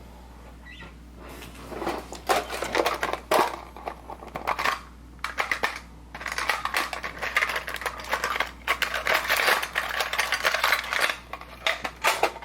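Rustling and clicking of a product box and its packaging being handled, in irregular bursts starting about two seconds in.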